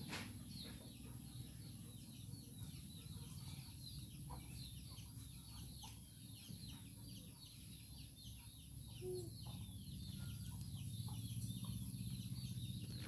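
Faint chicken calls: many short, high, falling chirps throughout, over a low steady rumble.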